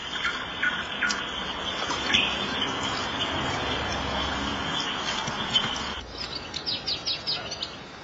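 Water pouring and splashing into a plastic basin as a puppy is bathed, with a nightingale singing. About six seconds in, the splashing stops abruptly, leaving quick, high bird chirps.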